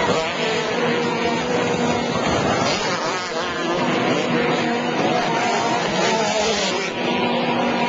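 Formula 250 racing hydroplanes' two-stroke outboard engines running at speed, a continuous buzz whose pitch rises and falls slightly.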